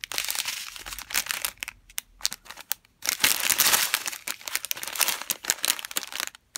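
Strip of thin clear plastic bags holding diamond-painting crystal drills crinkling as it is handled, in bursts with short pauses. It is loudest from about three seconds in and stops just before the end.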